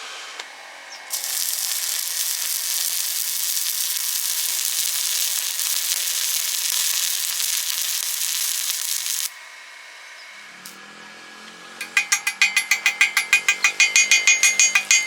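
Stick welding arc: a steady crackling hiss that starts about a second in and cuts off abruptly after about eight seconds. Near the end comes a fast, even run of sharp metallic clicks, about seven a second.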